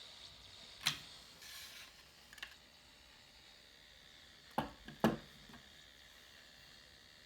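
Sharp clicks and clacks of a handmade prop sword's opening-and-closing scabbard mechanism being worked: one about a second in, a short rustle after it, then two more close together around the middle, over a faint steady hiss.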